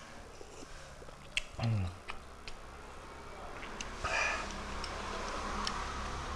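Eating sounds from a mukbang: scattered light clicks of a metal spoon against the plate and soup bowl, with mouth sounds of eating. There is a brief low hum about a second and a half in, and a short scrape around four seconds in as the spoon dips into the soup bowl.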